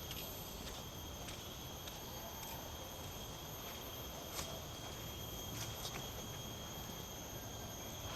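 A steady high-pitched drone of forest insects, with a few faint clicks about four and a half and five and a half seconds in.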